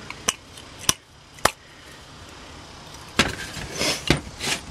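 Three sharp separate metallic clicks, then a quick cluster of clicks and rattles about three seconds in: a bare aluminium carburetor body and small hand tools being handled and set down on a metal workbench tray.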